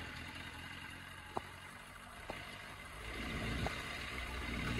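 Suzuki Bandit 600's inline-four engine running at idle on freshly rebuilt carburettors that are not yet balanced. The engine sound sags to its faintest around the middle and picks back up from about three seconds in, with a few light clicks.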